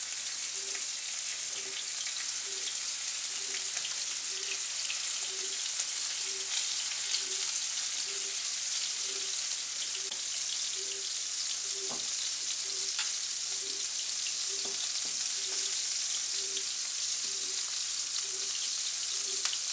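Venison backstrap medallions searing in hot vegetable and olive oil in a skillet over medium-high heat: a steady sizzle dotted with small crackles as the oil spits around the meat.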